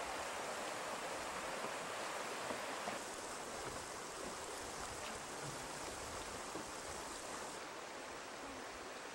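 Shallow river rapids rushing steadily, a continuous hiss of water over rocks that shifts slightly in tone about three seconds in and again near the end.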